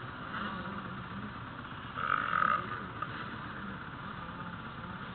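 Distant motocross bikes running on the track, engines buzzing and revving. About two seconds in, one engine comes up louder for about half a second.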